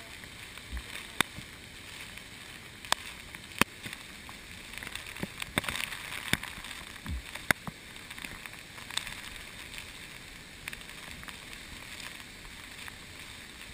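Flash-flood water rushing through a narrow slot canyon as a steady hiss, with sharp clicks and knocks scattered through it every second or so.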